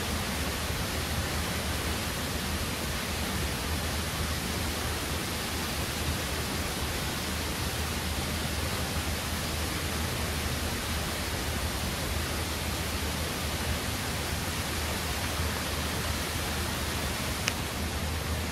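Steady rushing of Tempesta Falls, water cascading over rock ledges in a gorge: an even, unbroken wash of noise. A single small click near the end.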